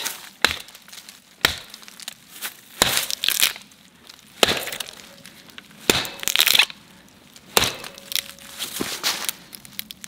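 The axe head of a COMBAR survival multitool chopping into a standing tree trunk, about seven sharp blows, irregularly spaced one every second or so. A short crackle follows a few of them.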